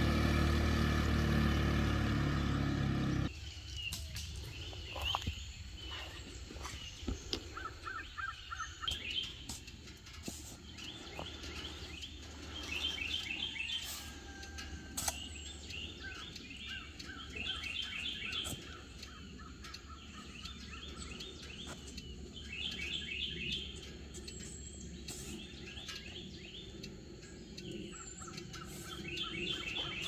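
Music for about the first three seconds, which cuts off suddenly. Then songbirds singing repeated trilled phrases, with occasional sharp knocks of a garden hoe striking the soil.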